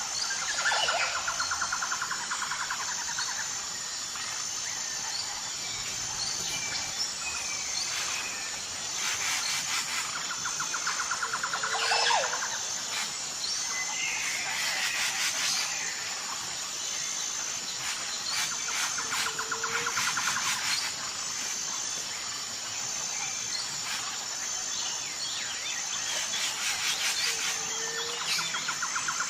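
Jungle ambience: several birds calling, with whistles, buzzy trills and rapid rattling calls that come and go, over a steady high pulsing insect drone.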